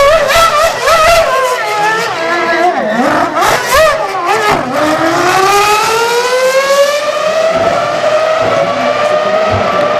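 The V10 of a 2004 BAR Honda 006 Formula One car revs hard up and down as the car spins in its own tyre smoke. About halfway through, it pulls away with one long, slowly rising note.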